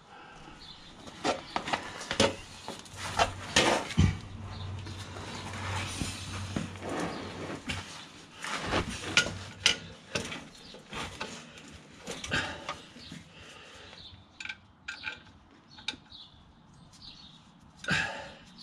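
Irregular metallic clicks, clinks and knocks of a bolt and socket against a car's clutch pressure plate as its bolts are threaded in by hand.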